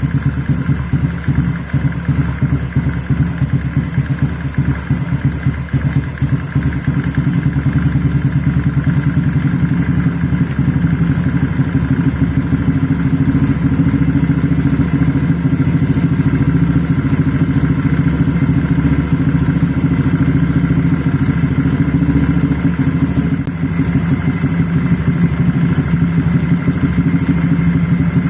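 Honda Vario 125 scooter's single-cylinder four-stroke engine idling steadily through an aftermarket RMS Muffler Sport big-volume silencer, with an even, rapid exhaust pulse.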